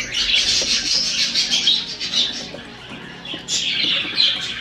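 Many caged parakeets chirping and chattering at once, a dense high twittering that dips for about a second midway.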